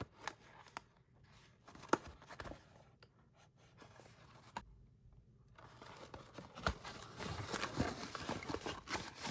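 Cardboard Creme Egg carton being handled: a few sharp taps and knocks, then after a short pause a dense stretch of rustling and tearing that stops abruptly near the end.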